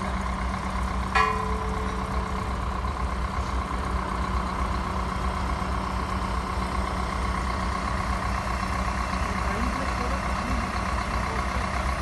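Liebherr mobile crane's diesel engine running steadily at idle with a constant high whine over a low rumble. About a second in, a single sharp metallic clank rings briefly.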